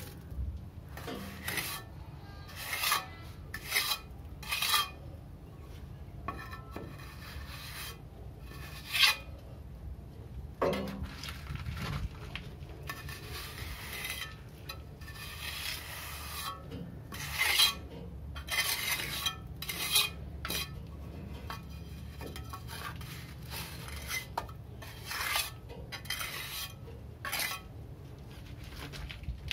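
Metal trowel scraping and smoothing wet cement mortar to patch the gap around a pipe through a wall: irregular rasping strokes, a few every couple of seconds, over a low steady hum.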